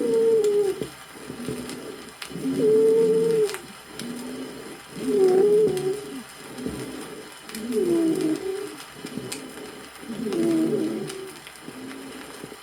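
Stethoscope recording of high whistling wheezes (sibilant dry rales) in the chest of a patient with bronchial asthma, typical of narrowed small bronchi. A musical, whistling wheeze swells with each breath, about every two and a half seconds.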